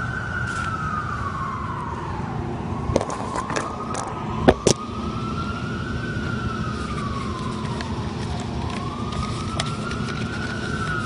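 Emergency vehicle siren wailing, its pitch rising and falling slowly about every five seconds, over a steady low rumble of city traffic. A couple of sharp knocks come about four and a half seconds in.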